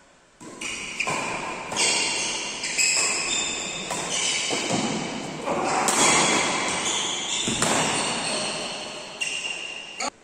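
Badminton racquets hitting a shuttlecock back and forth in a doubles rally, sharp hits and thuds echoing in a large hall, with short high squeaks from players' shoes on the court.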